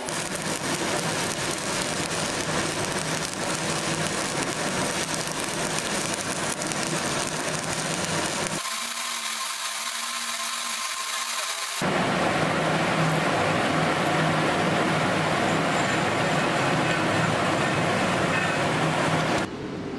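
Electric arc welding: the steady crackling hiss of the welding arc on a metal plate, in three cut-together stretches. The middle stretch is thinner and quieter; the last is the loudest and stops abruptly shortly before the end.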